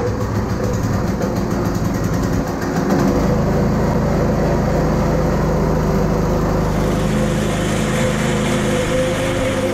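Small go-kart engine running steadily, its low drone growing fuller about three seconds in.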